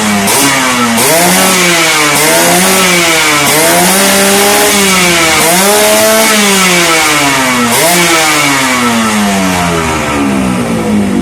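Motorcycle engine through an aftermarket racing exhaust pipe, revved repeatedly: about six or seven throttle blips, each jumping up sharply in pitch and sinking slowly back, the last one falling away over the final few seconds.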